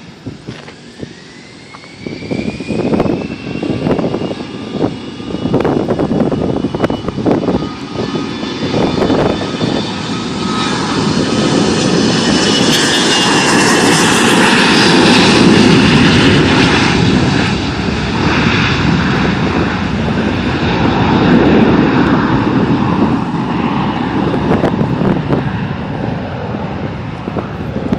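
Private jet's turbine engines on the takeoff run. A high whine rises in pitch over the first few seconds, and the engine noise builds to its loudest about halfway through, then stays loud while slowly easing. Wind gusts buffet the microphone in the first several seconds.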